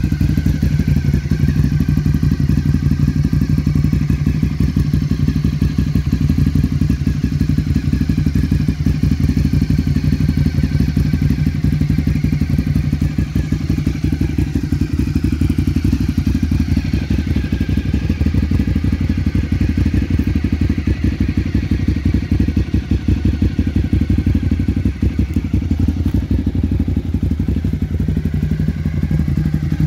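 Ducati 848's 849 cc L-twin engine idling steadily, with an even, fast, regular beat from the exhaust.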